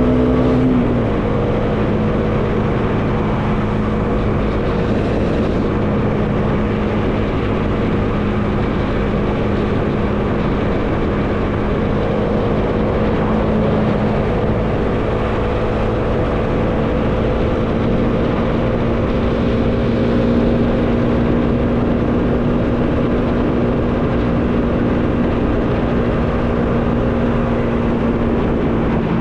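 Bajaj Dominar 400 single-cylinder engine running at a steady cruise, with wind noise rushing over the microphone. The engine note drops in pitch about a second in, then rises slightly partway through and holds steady.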